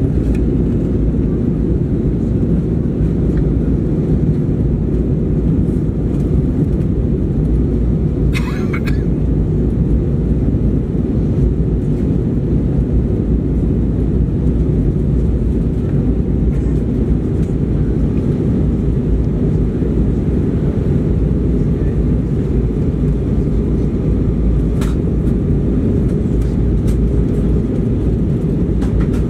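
Steady cabin drone of an Airbus A320 in flight, heard from a window seat by the wing: low, even engine and airflow noise as the jet heads in to land. A brief rattle about eight seconds in and a short click near the end.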